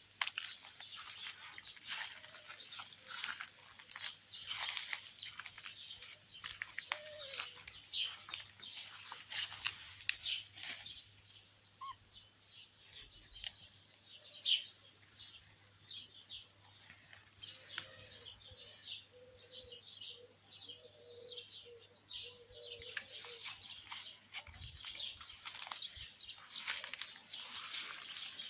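Irregular rustling and crackling of small animals moving about through dry vegetation, with a run of short low calls about two-thirds of the way through.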